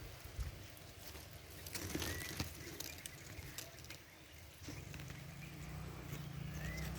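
Faint short bird chirps among scattered rustling clicks. A low steady engine hum comes in about two-thirds of the way through.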